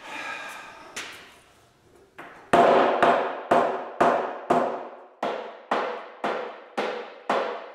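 Hammer blows on the wooden edge board of a barn-wood workbench, about ten strikes roughly twice a second, each ringing briefly through the table, knocking the board into place.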